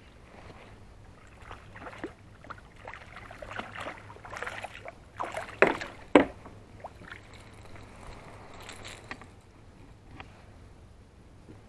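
Water splashing and knocking around a kayak, with scattered clicks. Two sharp, loud knocks come about halfway through.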